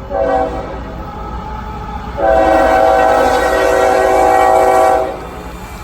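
Locomotive air horn sounding a chord: a short blast, then a long blast of about three seconds, over the steady low rumble of the train.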